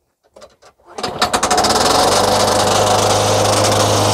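Tecumseh small engine on an older Craftsman push mower starting up about a second in after a few faint clicks, then running steadily at speed. The blade recently struck something, and the owner suspects a sheared flywheel key.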